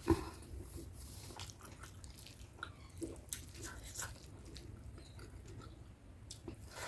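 Close-miked chewing and wet mouth sounds while eating chicken curry with rice: irregular smacks and small clicks, with one sharper click right at the start.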